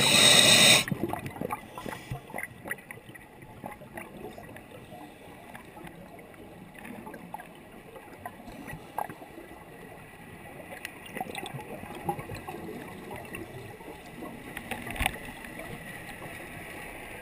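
Underwater sound through a camera housing: a loud rush of exhaled scuba bubbles in the first second, then faint crackling and scattered sharp clicks, with a soft hiss rising in the last few seconds.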